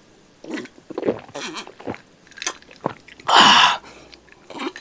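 Close-miked mouth sounds of someone drinking: small sips and swallows, then one loud breathy exhale a little after three seconds in.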